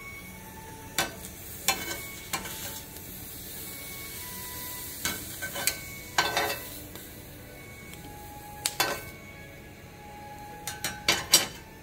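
Jalapeño peppers and onion sizzling on a hot griddle pan, a steady hiss, with metal tongs clicking sharply against the pan and a glass bowl at irregular intervals as charred onion pieces are lifted out. The clicks come in small clusters, several close together near the end.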